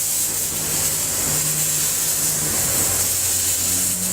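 Steady, loud hiss of a gas flame jet shooting from a fire-breathing wizard staff, used as a torch to heat a circuit board and reflow its solder.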